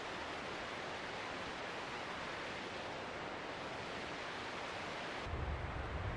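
A mountain creek rushing steadily over rocks, an even hiss without pauses. About five seconds in, the sound changes abruptly to a duller noise with a low rumble underneath.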